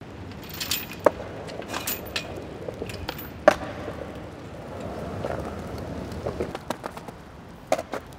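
Outdoor city ambience: a steady low rumble with scattered sharp clacks and knocks, the loudest about a second and about three and a half seconds in, with a couple more near the end.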